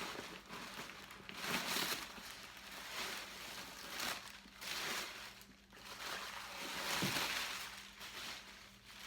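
Irregular rustling and crinkling as the bag's packing stuffing and cloth dust bag are handled and pulled out, in several bursts with short pauses between.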